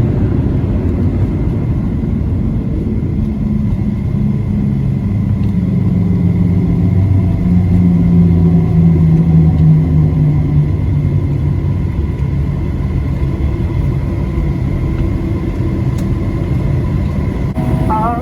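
Cabin noise of a Boeing 737-700 airliner rolling on the ground after landing: a loud, steady rumble of the airframe and wheels, with the engines' low tone swelling in the middle and then easing off.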